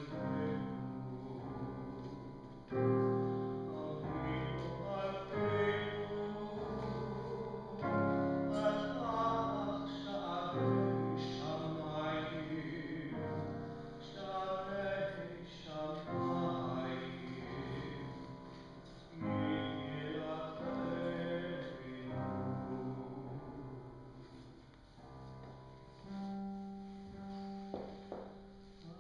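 Slow piano music, with sustained chords and single notes that start and decay in turn.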